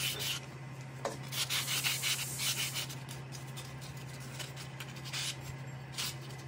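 Fine sandpaper rubbed back and forth by hand over the hub of a Bajaj Discover 125's starter clutch gear. It is sanding out the pitting where the starter clutch rollers run. The scraping strokes come in quick runs, with a quieter stretch in the middle.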